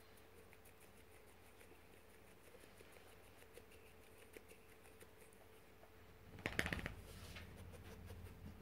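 Near silence: quiet room tone with faint ticking, broken by one short burst of noise about six and a half seconds in.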